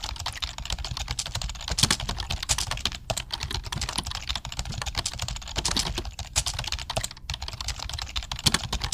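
Packaging being handled by hand during an unboxing: a dense, irregular run of crinkles and clicks.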